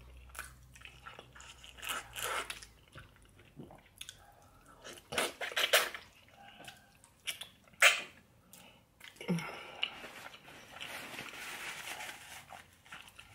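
Close-miked chewing and biting of a person eating a stewed meal, in short bursts, loudest around two, five to six and eight seconds in, then a softer, steadier stretch of chewing near the end.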